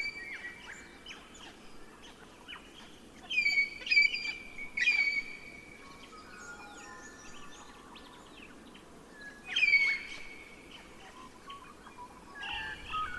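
Birds calling: loud, harsh repeated calls come in a cluster a few seconds in and again near the end, with fainter chirps between them over a faint steady background hiss.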